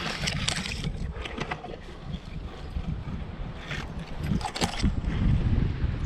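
Wind rumbling on the microphone, with two bursts of scraping and rustling at the start and about four seconds in, from the climber's movement against rock and gear.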